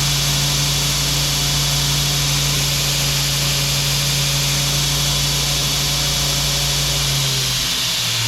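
Belt grinder running steadily, its abrasive belt sanding hardwood knife handle scales, with a steady motor hum under a broad sanding hiss. Near the end the hum drops lower in pitch.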